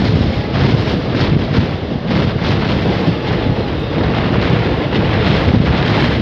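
Loud wind buffeting the microphone held out of a moving diesel multiple unit (DMU) train, over the train's steady running noise.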